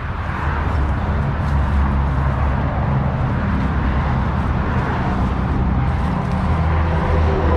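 Motor vehicle running: a steady low engine rumble with road noise.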